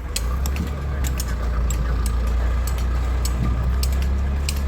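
An engine running steadily with a low rumble, mixed with short sharp clicks from the steel-fixing work.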